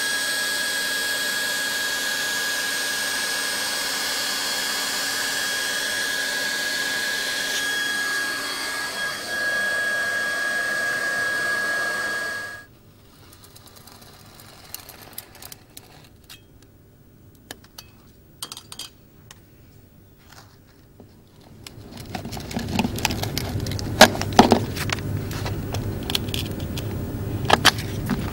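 Hot-air vinyl floor welding gun blowing steadily with a constant high whine; it cuts off suddenly about halfway through. Faint clicks and scrapes follow, then louder scraping and knocks near the end.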